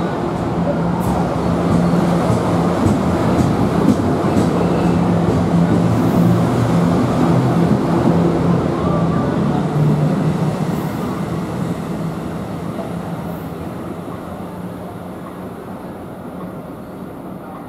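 NJ Transit multilevel commuter train rolling along the platform, a steady rumble with a low hum and a few sharp clicks, fading away over the last several seconds.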